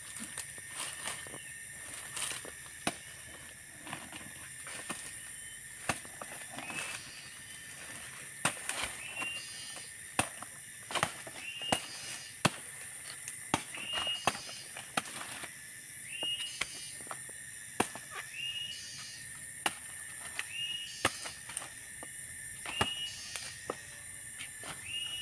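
Cicadas droning steadily in the forest. Over the drone come scattered sharp snaps and rustles of twigs and leaves as someone pushes through the undergrowth. From about a third of the way in, a short rising call repeats about every second and a half.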